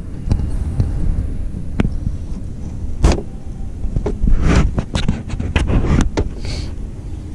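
Steady low wind rumble on the microphone, with scattered sharp knocks and rattles as a fish is unhooked from a landing net inside an aluminum boat.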